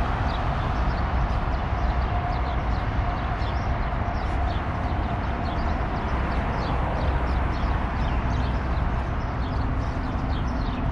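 Street ambience picked up by an action camera while walking: a steady wind rumble on the microphone over passing road traffic, with a short high chirp repeating about twice a second.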